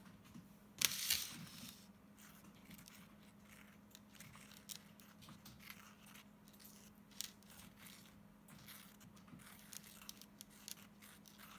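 Faint handling noise of light rustles and small ticks, with a brief louder rustle about a second in, over a faint steady low hum.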